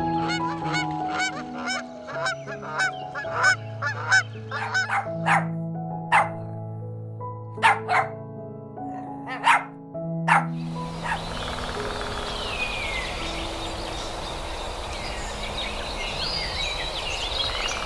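Background music with a series of short honking calls, then a dog barking in a handful of short, sharp barks between about five and ten seconds in. After that, a steady outdoor hiss with high bird chirps over the music.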